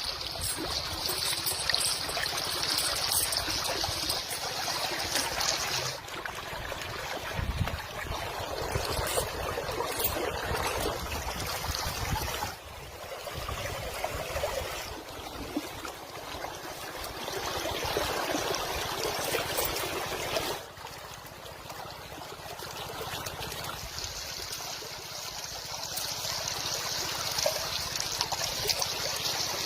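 Running water, a stream trickling and flowing steadily, with its level and character changing abruptly a few times.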